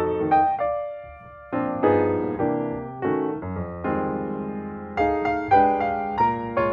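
Background piano music: soft chords struck one after another and left to ring, with a short pause about a second in.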